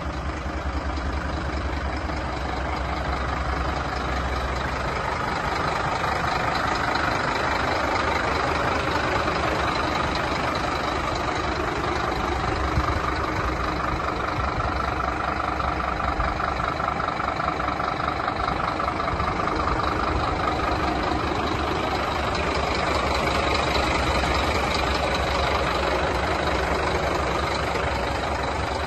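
Scania P230 skip-loader truck's nine-litre five-cylinder diesel engine idling steadily.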